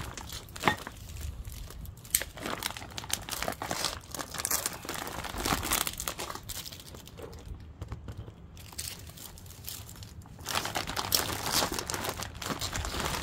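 Thin clear plastic bags crinkling and tearing as they are cut and pulled open by hand. There is a short lull a little past halfway, then louder, denser crinkling near the end.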